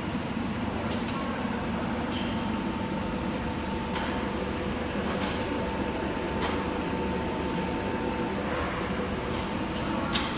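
Corrugated-board slitter-scorer running steadily: an even mechanical hum with a faint high whine and a few sharp clicks, the loudest near the end.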